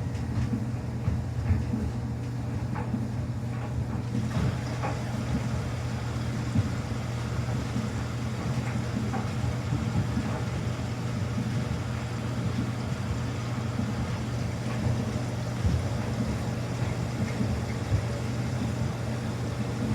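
Samsung washing machine running a quick wash cycle: a steady low motor hum with irregular light knocks and ticks from the turning drum.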